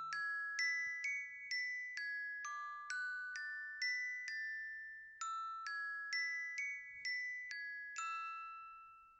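Countdown timer's alarm going off: a glockenspiel-like chime melody of struck notes, about two a second, in two phrases with a short gap in the middle. The last note rings out and fades.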